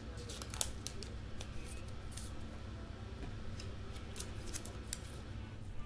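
Trading cards being handled and slid one after another through a pack: faint scattered clicks and rustles over a low steady hum.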